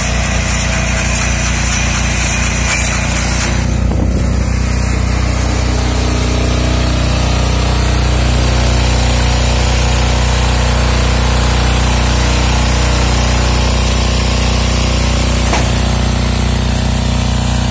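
Single-cylinder engine of a walk-behind two-wheel tractor running steadily, driving a CAEB mini round baler through its power take-off.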